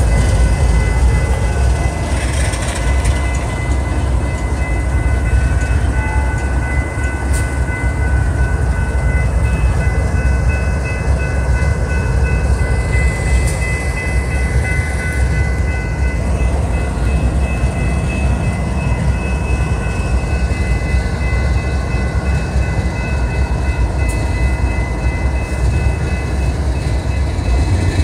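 GE ES44C4 diesel locomotives of a BNSF freight train passing close by, with a heavy, steady engine rumble. Over it, high steady ringing tones are heard, most likely the crossing's warning bell sounding while the gates are down.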